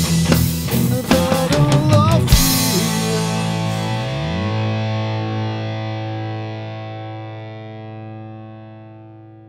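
Heavy rock band playing the final hits of a song with drums and distorted electric guitar. A distorted guitar chord is then held, with a note sliding up about four seconds in, and rings on while slowly fading out.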